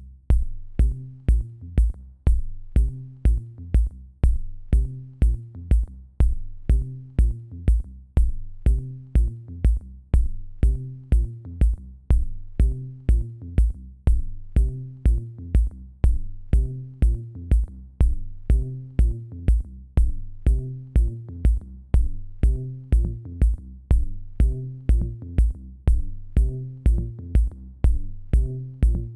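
Electronic background music with a steady kick-drum beat, about two beats a second, over a repeating bass line.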